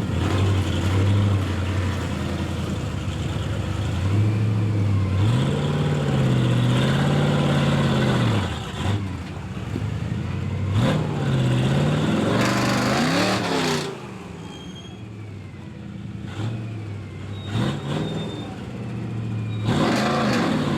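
S10 off-road cab truck's engine revving hard in repeated surges, its pitch climbing and falling with each push at the ledge. About two-thirds of the way in it drops to a lower, quieter running with a few sharp knocks, then revs up again near the end.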